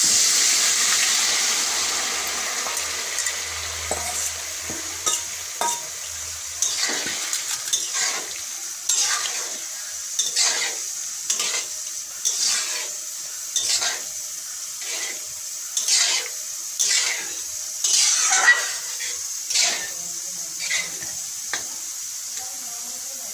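Chana dal going into hot fried masala in a metal wok: a loud sizzle at the start that fades over the first few seconds. Then a metal spoon stirring and scraping against the wok, about one or two strokes a second.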